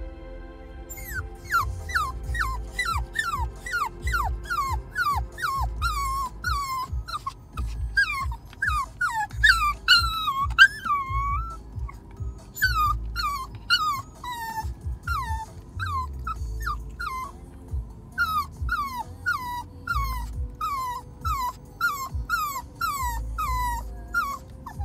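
Yorkshire terrier barking, a long run of short, high barks, about two a second, each dropping in pitch, with a couple of brief pauses.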